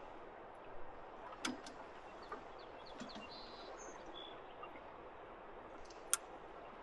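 Faint, steady rush of flowing river water, with a few light knocks and taps scattered through it.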